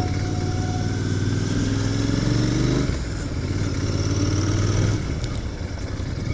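Royal Enfield Continental GT 650's 648 cc parallel-twin engine running on the move through its stock exhaust. The engine note drops about three seconds in, picks up again, and drops once more about five seconds in.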